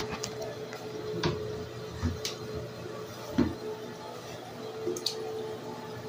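Water splashing and dripping in a Briggs Conserver toilet bowl after a flush, with several sudden splashes and thumps, the loudest about three and a half seconds in, over a faint steady hum.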